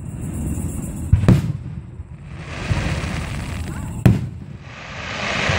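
Aerial firework shells bursting: two loud booming bangs, one about a second in and one about four seconds in.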